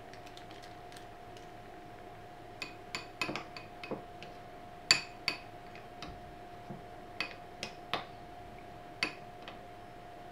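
Metal spoon stirring thick slime in a glass bowl, clinking and knocking against the bowl at irregular intervals, with one louder knock about five seconds in.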